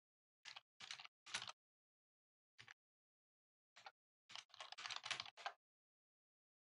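Faint computer keyboard typing: a few scattered keystrokes, then a quicker irregular run of keys over the last couple of seconds.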